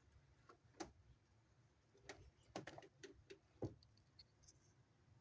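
Near silence with a few faint, scattered clicks and taps, the sharpest a little past halfway through.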